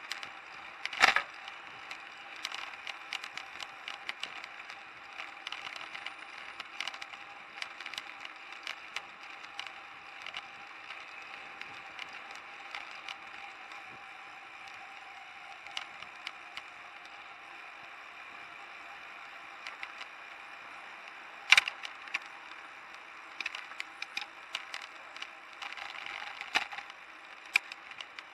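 Bicycle-mounted camera and handlebar gear rattling and clicking over the road surface while riding, with two louder knocks from bumps, one near the start and one about three-quarters through, over steady street and tyre noise.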